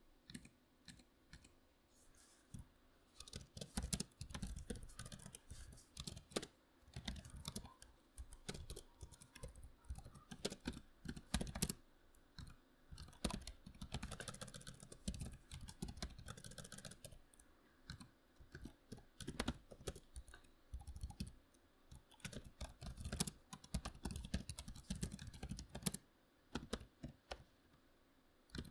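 Typing on a membrane computer keyboard: dense, irregular runs of key presses from about three seconds in until shortly before the end, with only scattered clicks at the start and end.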